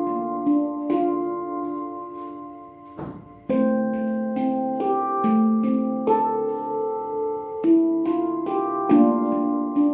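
Handpan being played: a slow melody of struck notes that ring on and overlap. About three seconds in the ringing dies away briefly, then the playing comes back suddenly at full level.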